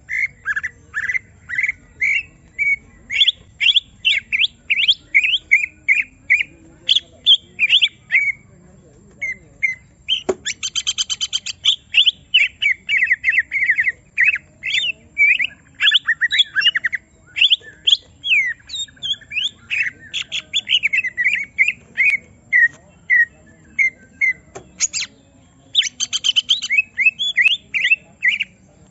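Greater green leafbird (cucak ijo) singing a fast, agitated run of sharp chirps and whistled notes, with a brief lull and two fast rattling trills, about ten seconds in and near the end. This is the excited song of a leafbird provoked into showing its full repertoire.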